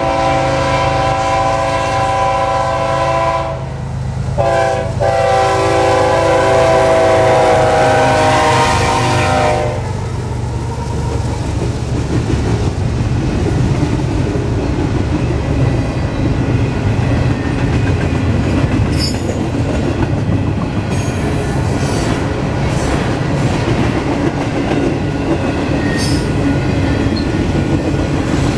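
Freight locomotive's multi-chime air horn sounding long blasts for a grade crossing, with a short break after about three and a half seconds, ending about ten seconds in. Then a double-stack intermodal train rolls past with steady wheel-on-rail clatter over a low diesel drone, and brief metallic squeals past the middle.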